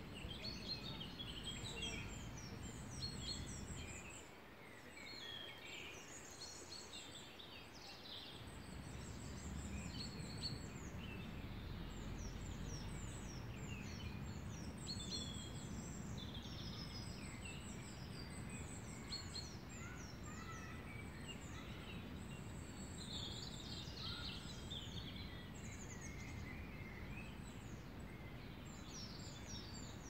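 Spring woodland birdsong: several small birds singing and calling at once in quick chirps and short falling phrases, over a steady low rumble that eases off for a few seconds near the start.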